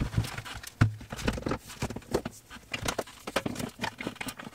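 Irregular clicks, taps and knocks of hand work at a wall, with a few dull thumps in the first second and a half.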